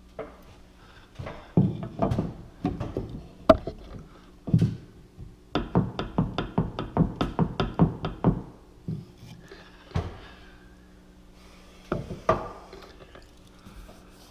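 A wooden crown molding corner piece knocking against the top of kitchen cabinets as it is set in place and rocked, with a quick run of about a dozen taps in the middle. The piece wobbles because one part of the joint sits proud.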